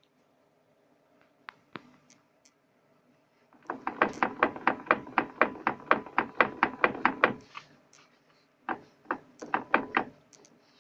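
Driveline backlash knocking as the drive is rocked back and forth: a fast run of clunks, about five a second, then after a pause a shorter run. The play is in the CV joints or differential, and the owner suspects a loosened or failing differential.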